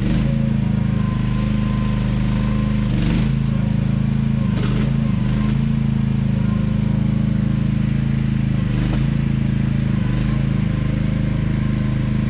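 AGT QH12R mini excavator's engine running steadily, with a few brief rushing noises from the machine working.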